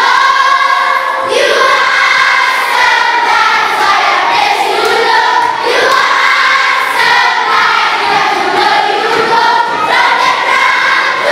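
A large group of children singing together loudly as a choir.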